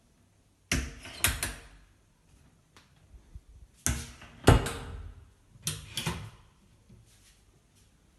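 A door being opened and closed: three short bursts of knocks and latch clicks, the loudest about four and a half seconds in.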